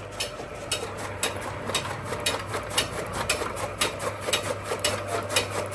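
Chaff cutter (toka) chopping green fodder: the blades on its big flywheel strike in a steady rhythm, about four chops a second, over a low steady hum.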